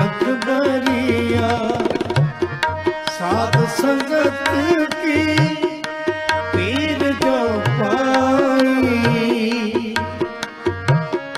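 Sikh kirtan: harmoniums sustaining chords and melody with a tabla keeping a steady rhythm, its bass drum strokes sliding up in pitch, under a voice singing long ornamented lines.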